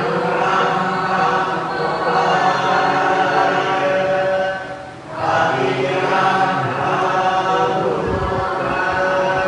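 Buddhist monks chanting together in unison through microphones, in two long held phrases with a short pause for breath about five seconds in.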